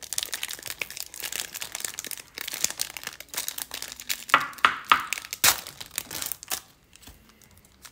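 Foil wrapper of a Panini Select football card pack crinkling and crackling as it is worked open by hand. The sharpest crackles come about four to five seconds in, and the crinkling dies down near the end.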